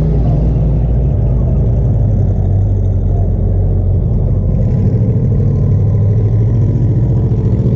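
Jeep ZJ's engine running with a steady low drone, as of the vehicle under way.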